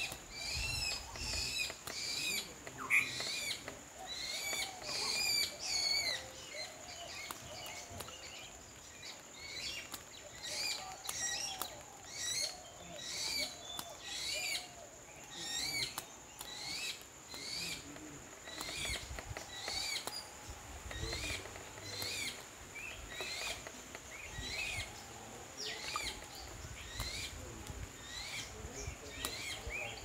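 A small animal's short, high chirping calls repeated about once or twice a second, steady throughout, over a faint steady high-pitched whine.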